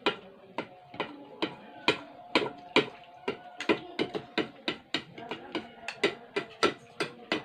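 Spoons and a soup ladle clinking and tapping against bowls at a meal, sharp irregular clicks several times a second.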